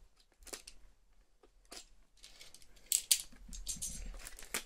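Clear plastic packaging being handled and pulled open by hand: scattered sharp clicks and crinkles, busiest about three seconds in.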